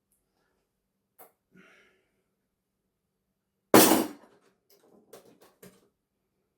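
Parts and tools being handled while dismantling a television: a couple of faint clicks, then one loud knock a little under four seconds in, followed by a quick run of lighter clicks and taps.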